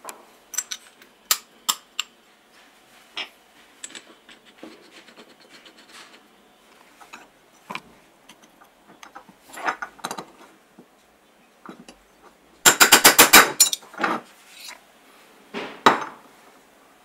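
Small metal parts clicking and clinking while a power drill's aluminium gear housing is reassembled by hand, with a spanner worked on the spindle. About three-quarters of the way through there is a fast run of about ten sharp metallic clicks, the loudest sound, and near the end a knock as the housing is set down on the wooden bench.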